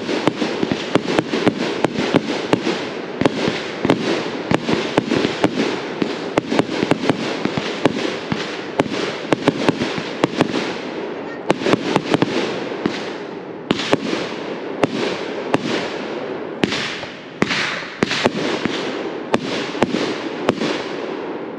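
Consumer aerial fireworks firing in rapid succession: a dense run of sharp pops and crackling bursts over a continuous hiss, with a few brief lulls in the second half.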